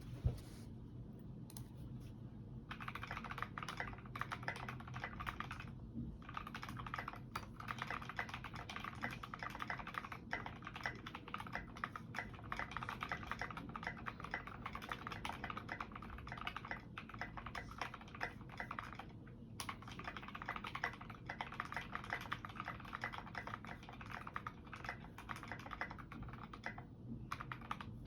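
Continuous fast typing on a KBD67 MK-I mechanical keyboard with lubed and filmed Creamsicle switches and fully modded Cherry stabilizers. The keystrokes are sparse for the first couple of seconds, then come in a dense, steady stream, with brief pauses about six seconds in and again past the midpoint.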